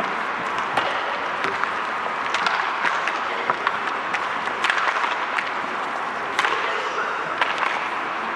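Audience applauding, a steady mass of hand claps with no let-up.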